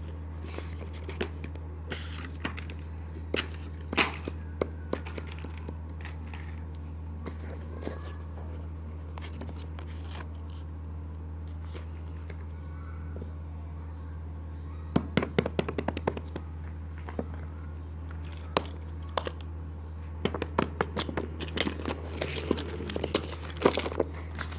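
Paper sheets being handled by hand, with scattered short rustles and crinkles that come thickest about fifteen seconds in and again near the end, over a steady low hum.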